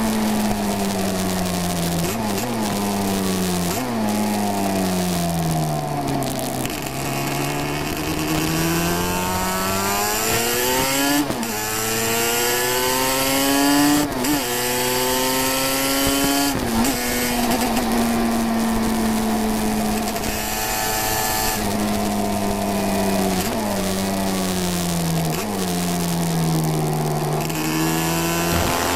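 350cc classic racing motorcycle engine heard from on board at race speed. Its pitch falls as it slows with blips on the downshifts, then climbs again and again with sudden drops at each upshift. Wind noise and crackling from a damp camera microphone run underneath.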